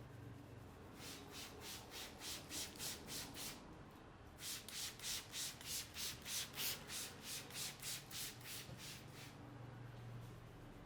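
Hands rubbing briskly in quick, even strokes over hair and scalp during a head massage, about three strokes a second: a short run, a brief pause, then a longer, louder run.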